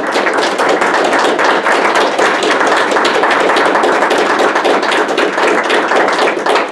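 Audience applauding: many hands clapping together at a steady, loud level.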